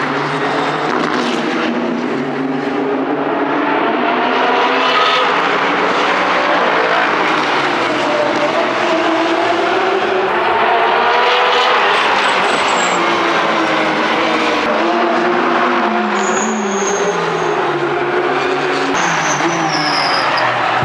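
Several race cars going past at speed, overlapping and one after another. Their engine notes keep rising and falling as they rev and shift.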